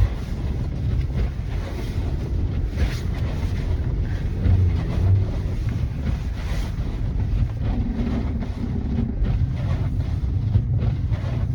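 Car driving through deep snow, heard from inside the cabin: a steady low rumble of engine and tyres.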